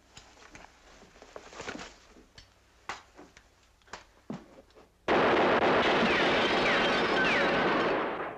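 Clicks and knocks of a rifle being handled, then about five seconds in a loud continuous burst of gunfire lasting about three seconds: the rifle said to have jammed fires without fault.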